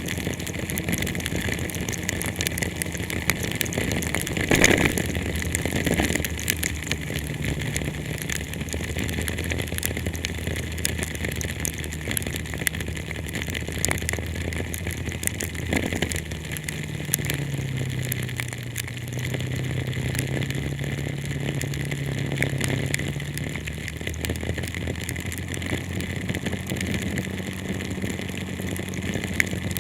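Heavy rain heard from inside a car, pattering with many small ticks over a steady low engine hum that shifts slowly in pitch. A brief louder whoosh comes about four seconds in and again around sixteen seconds.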